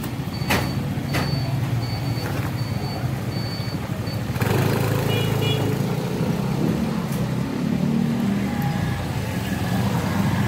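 Road traffic: a heavy vehicle's engine rumbling, with a short high-pitched beep repeating steadily for the first four seconds. About four and a half seconds in, a louder rush of noise sets in and the rumble grows.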